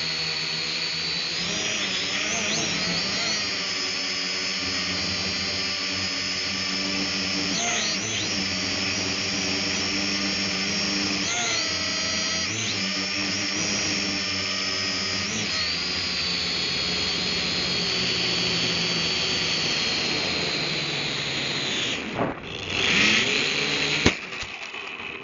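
Cheap toy drone's electric motors and propellers whining steadily, heard up close through its own onboard camera, the pitch dipping and recovering several times as it flies out of control beyond radio range. Near the end it tumbles, with a burst of noise and a sharp knock as it comes down, and the motor whine cuts off.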